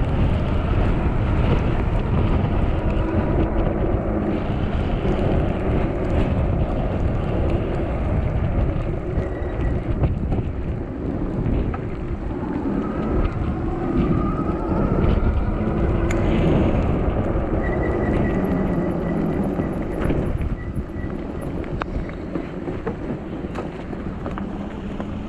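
Heavy wind buffeting the microphone of an electric bike riding through rain and wind, with the rumble of tyres on the wet road underneath.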